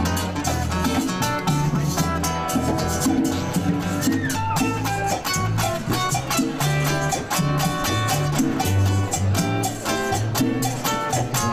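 Latin band music with guitar over a bass line and a steady beat.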